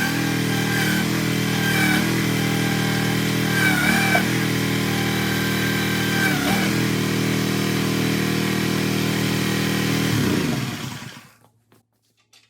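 Small engine of a towable mini excavator running steadily. Three times a higher whine briefly rises and bends in pitch over it. Near the end the engine is shut off and winds down to near silence.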